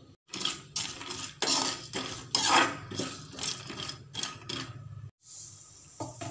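A spatula stirring peanuts and dals in hot oil in a kadai, giving a run of irregular scrapes and clinks against the pan. After a brief break near the end, a faint steady hiss.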